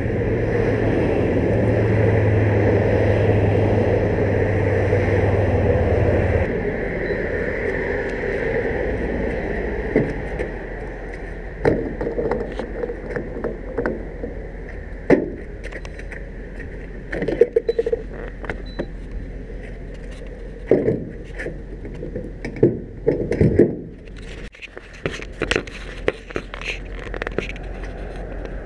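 Pickup truck engine running at idle, shut off about six seconds in. Then a run of scattered clicks and knocks from handling around the truck at the fuel pump.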